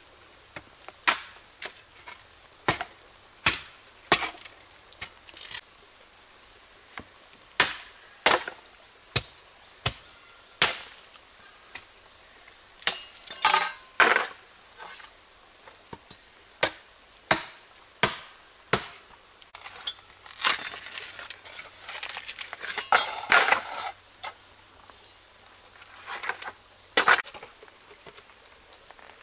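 A knife chopping and splitting bamboo: a steady series of sharp, woody strikes roughly one a second. Near the end these give way to a looser clatter of split bamboo pieces being handled.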